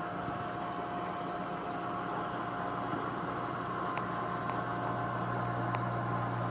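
Steady hum of an aquarium pump running, with a few faint ticks partway through.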